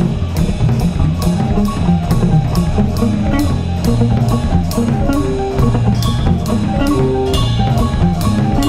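Rock band recording: drum kit keeping a steady beat, with cymbal strokes about three a second, under guitar and bass.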